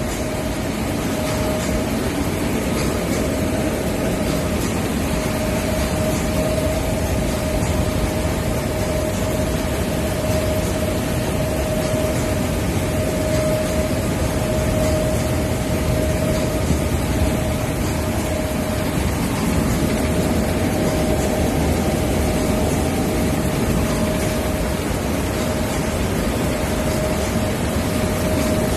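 Seed-cleaning sieve machine with its suction hose, running steadily: a constant mechanical rushing noise with a steady mid-pitched whine throughout.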